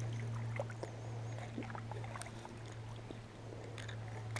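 Spinning reel being cranked as a small hooked bass is reeled in, heard as faint scattered clicks over a steady low hum. A bird chirps briefly about a second in.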